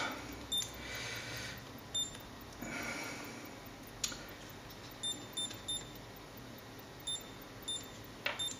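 Short, high electronic key beeps from a small digital bench module as its buttons are pressed to set a voltage, first one at a time and then in quick runs of three, with faint handling rustle between them.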